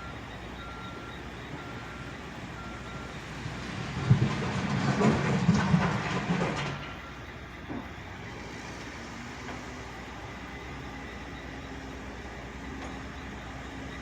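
Backhoe's backup alarm beeping steadily, a little under two beeps a second. About four seconds in, a loud scraping rattle of gravel being pushed by the bucket runs for two to three seconds and stops abruptly along with the beeping, leaving the machine's engine running low and steady.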